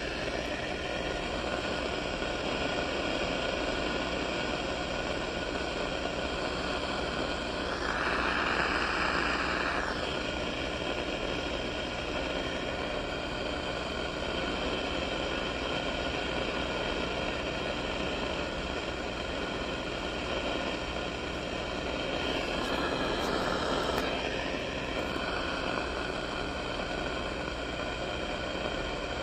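Radio receiver giving out static: a steady hiss with faint humming tones. A louder rush of noise comes about eight seconds in and again near the end.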